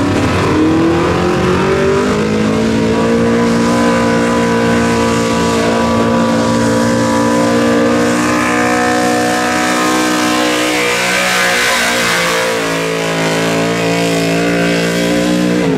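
Enhanced gas 4WD pulling truck's engine revving up over the first second or two, then held at high, steady revs under load through a pull, cutting back right at the end.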